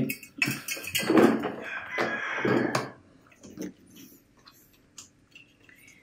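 Vacuum cleaner hose and attachments being handled: rustling and scraping for about three seconds, then a few light clicks and knocks.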